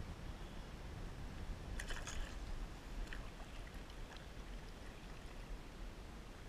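Water splashing around a kayak, with a short cluster of splashes and clicks about two seconds in and a few fainter ones after, over a steady low rumble.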